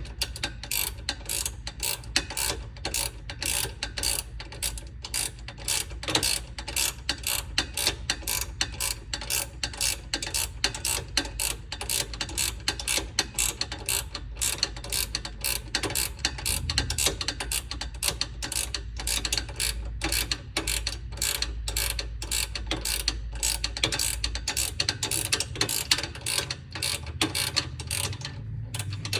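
Hand ratchet wrench clicking in quick, repeated strokes, with a steady low hum underneath.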